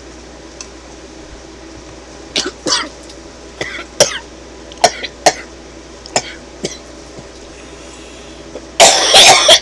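A woman coughing and choking on tea that went down the wrong way: a string of short coughs starts about two seconds in, then a loud fit of harder coughing comes near the end.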